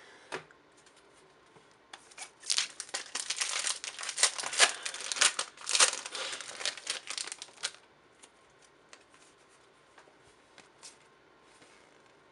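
A trading-card booster pack being torn open and its wrapper crinkled, a dense run of crackling from about two seconds in until nearly eight seconds. Then only faint rustles as the cards are handled.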